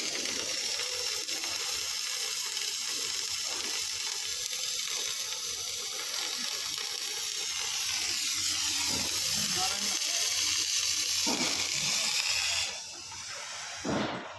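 Steady high-pitched hiss of a gas cutting torch's jet, cutting off abruptly near the end.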